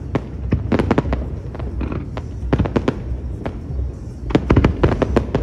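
Fireworks going off: clusters of sharp pops and crackles from small aerial bursts and rising comets, over a steady low rumble. The volleys come about every second or two, with the densest run near the end.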